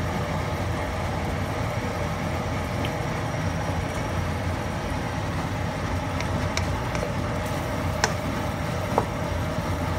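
Wooden spatula stirring thick sambal in a coated wok, with a few sharp taps on the pan in the second half, the loudest about 8 and 9 seconds in, over a steady low kitchen rumble.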